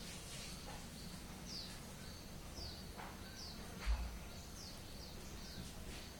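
Quiet background bird chirping: short, falling chirps, one every half second to a second, with a single dull thump about four seconds in.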